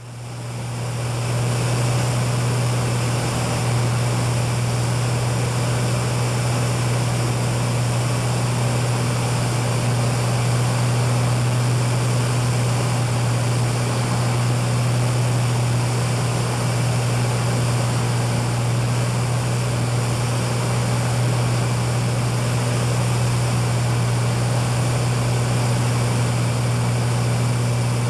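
Cessna 206 single-engine piston propeller plane heard from inside the cabin: a steady engine-and-propeller drone with a strong low hum, fading in over the first second.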